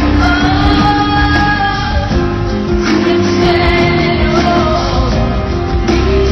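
Live rock band playing loudly with a woman singing long, held notes over it.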